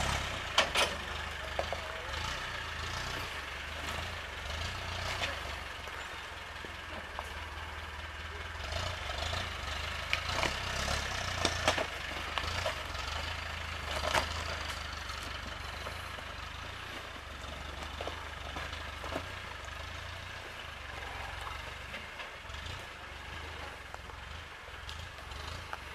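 Land Rover Defender's engine running at low revs as it crawls over a rocky track, with occasional sharp knocks and clatters of rocks under the tyres and chassis. The engine grows fainter near the end as the vehicle pulls away.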